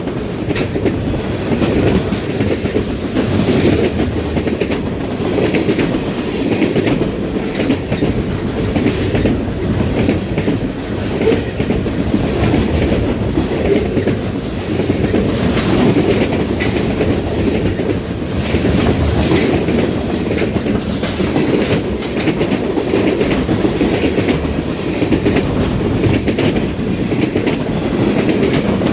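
Cars of a Canadian National freight train rolling past, their wheels clacking over rail joints in a steady, continuous stream.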